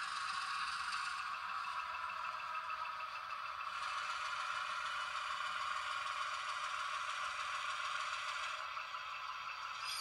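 HO scale model diesel locomotive running slowly along the track with a steady rattling mechanical noise, easing near the end as the engine comes to a stop.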